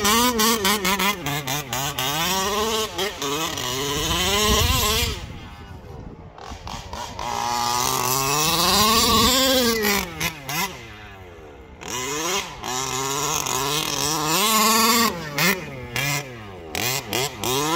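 Two-stroke petrol engine of a 1/5-scale Baja 5T RC truck, revving up and down over and over as it is driven hard on grass. It drops back to a lower, quieter note twice, about five and ten seconds in.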